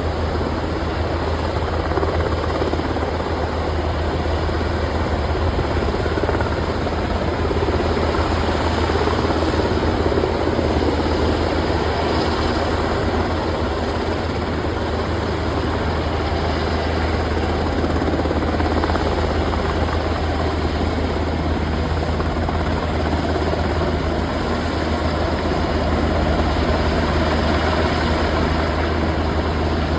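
Steady, loud engine drone with a strong low hum, holding even throughout.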